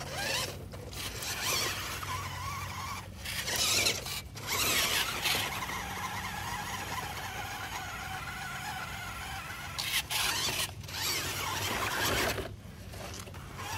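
Electric drive motor and gears of a 1:10 scale Maisto Tech RC Ford Bronco crawler truck whining as it strains up a loose dirt bank, with tyres scrabbling and spraying dirt, in bursts with short pauses.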